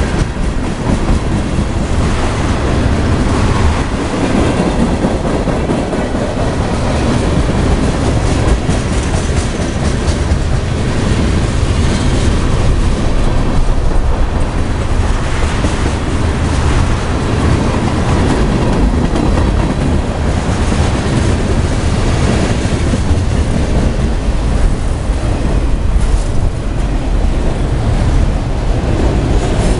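Freight train cars rolling past at speed: tank cars, a covered hopper and autorack cars. A steady, loud rumble of steel wheels on the rails, with scattered clicks over the rail joints.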